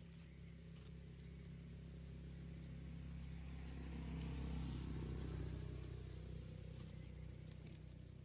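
A motor vehicle passing by: a low engine hum that grows louder to a peak about halfway through, then fades away.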